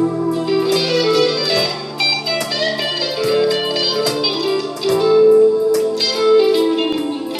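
1979 Fender Stratocaster electric guitar played through a Fender Mustang I amplifier: a lead line of picked notes, some of them sliding in pitch, over sustained lower notes.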